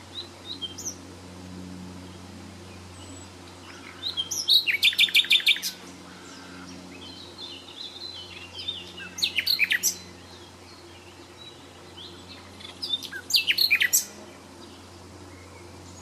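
A songbird singing three loud phrases of rapid repeated high notes, a few seconds apart, with fainter chirps between them, over a steady low hum.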